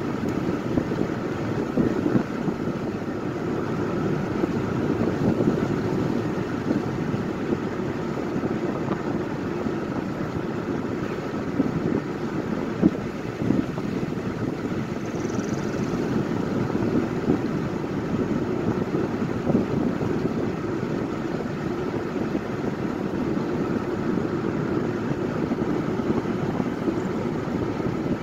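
Car driving at steady speed on a paved road, heard from inside the cabin: an even rumble of tyre and road noise with engine hum that does not change.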